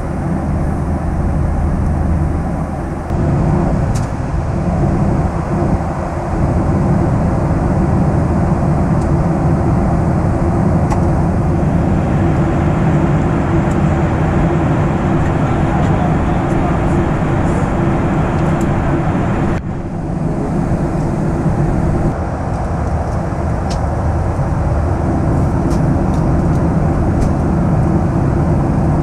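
Steady cabin drone of a Boeing 737-800 in cruise, heard from a window seat near the engine: CFM56 turbofan hum and airflow noise with a constant low tone. The drone changes character abruptly a few times where the recording is cut.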